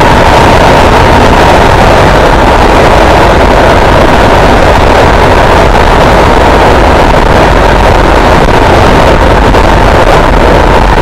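Armstrong MT500 military motorcycle's single-cylinder four-stroke engine running loud and steady at road speed, mixed with wind rushing over the microphone.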